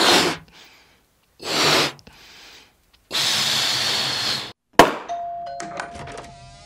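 Film-trailer title sound effects: three bursts of rushing noise, the last about a second and a half long, then a sharp hit about five seconds in followed by a held ringing tone.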